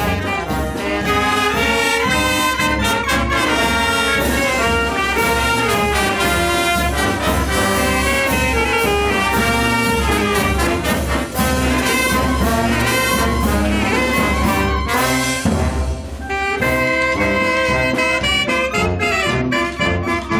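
Mexican brass band (banda de viento) playing a pasodoble live: clarinets, saxophones, trumpets and trombones over a sousaphone bass line, bass drum and snare. The music breaks off briefly about three-quarters of the way through, then the whole band comes back in.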